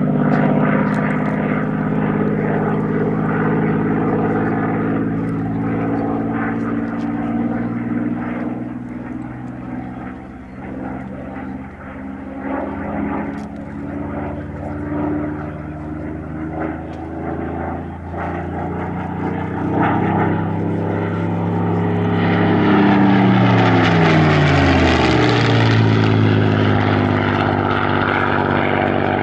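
Spitfire PR XI's Rolls-Royce Merlin V12 engine and propeller as the aircraft flies its display: a steady engine drone that fades a little, then grows loud in a close pass with the pitch falling as it goes by, about three quarters of the way through.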